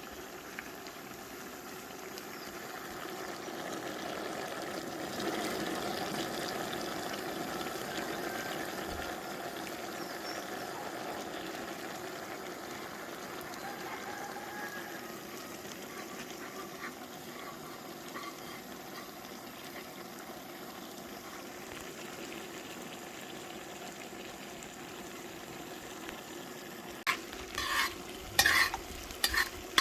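Seasoned chicken sizzling steadily in a pot of melted, browned sugar for a Trinidad-style stew chicken. A few sharp knocks of utensil on pot come near the end as it is stirred.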